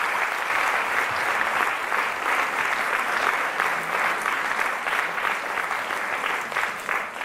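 Audience applauding: steady, dense clapping from many hands, easing off a little near the end.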